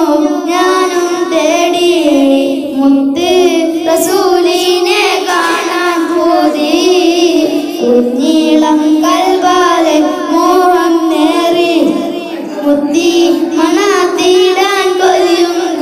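Two boys singing a Malayalam devotional song in praise of the Prophet, holding long, wavering notes.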